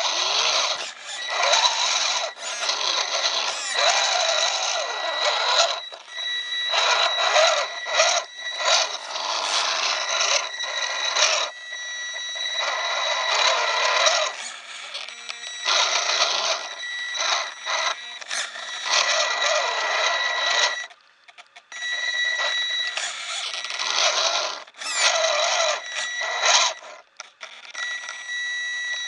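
Electric drive motor and gears of a 1/18 scale Team Losi RC rock crawler whirring in repeated stop-and-start bursts as the throttle is worked, over a steady high-pitched whine.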